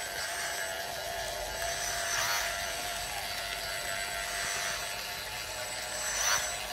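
Radio-controlled aluminium CAT D8 model bulldozer running, a steady electric whine from its motors and gearing as it crawls forward pushing soil with its blade. The whine swells briefly about two seconds in and again near the end.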